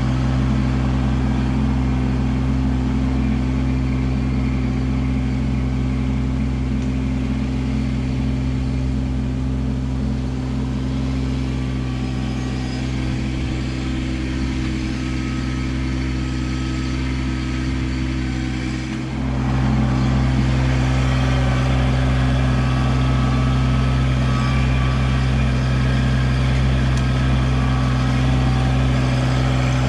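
Kubota LX2610 compact tractor's three-cylinder diesel engine running steadily as the tractor works logs with its grapple. There is a brief dip a little under two-thirds through, after which the engine sound is slightly louder.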